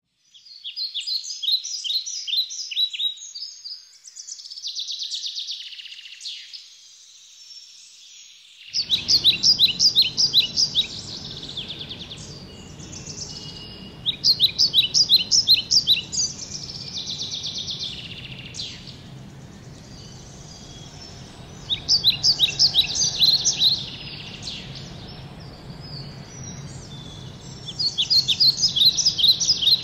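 A songbird singing: a phrase of quick, high, repeated notes comes back about every five to six seconds, with softer buzzy notes in between. A faint low background noise comes in about nine seconds in.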